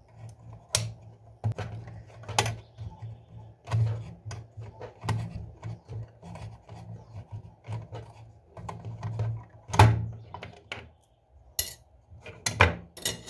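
Hand tools clicking and scraping on the metal parts of an old Veglia alarm clock being taken apart, in irregular sharp clicks with a few louder knocks, over a low steady hum.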